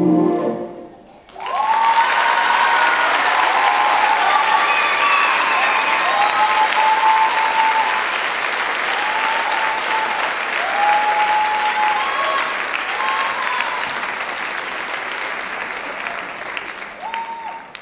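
Theatre audience applauding after the music stops about a second in, with voices calling out over the clapping; the applause tapers off near the end.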